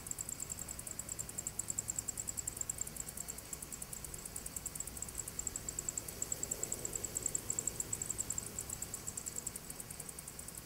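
Insects chirping in the dry grass: a high-pitched, steady, fast pulsing of several chirps a second, over a faint low rumble.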